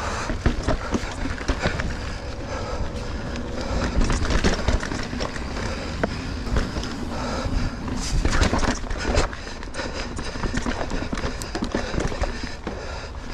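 Mountain bike clattering over rocky singletrack: tyres on dirt and rock, with frequent irregular knocks and rattles from the bike and a steady low rumble. The knocking is heaviest about two-thirds of the way through.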